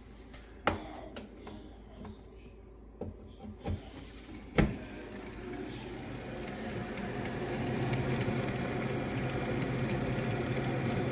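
A few knocks and a sharp click about halfway, then a refrigerator condenser fan motor starts and spins up over a few seconds to a steady hum. The fan blade, just set closer to the motor base, is making a little rubbing.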